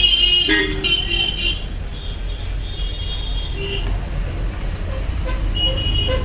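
A steady low hum with several short, high-pitched, horn-like toots over it.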